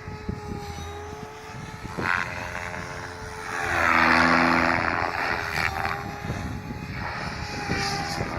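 Goblin 700 Competition electric RC helicopter with a three-blade main rotor in flight: a steady motor and gear whine over the rotor's rushing hum. It swells louder for about two seconds near the middle as the helicopter comes close, then eases off.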